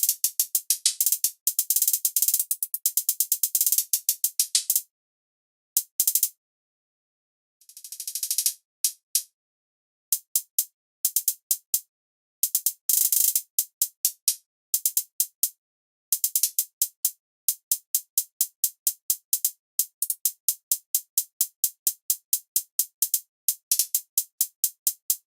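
Programmed trap-style hi-hat pattern from a drum machine sample kit: fast, crisp ticks in stuttering rolls and triplet runs, with brief gaps and one quick swelling roll about eight seconds in. No kick or bass plays under it.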